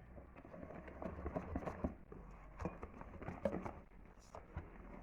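A utensil knocking and scraping in a mixing bowl as flour is worked into cake batter by hand, in irregular soft taps.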